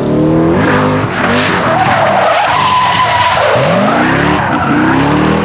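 Drift car engine revving hard while its tyres squeal and screech through a slide. The engine pitch drops about half a second in, then climbs steeply twice near the end as the throttle goes back on.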